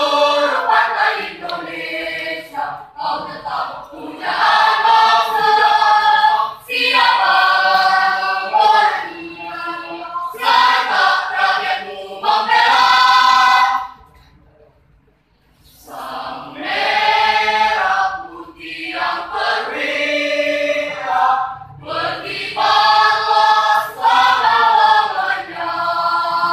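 Mixed choir of women's and men's voices singing an Indonesian national song, phrase after phrase, with a short pause about halfway through.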